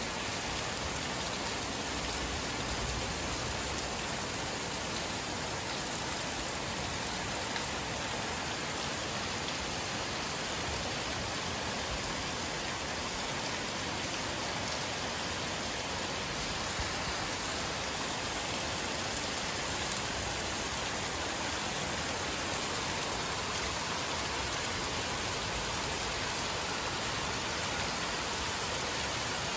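Rain falling steadily, an even hiss of rain on roofs and pavement that holds without a break.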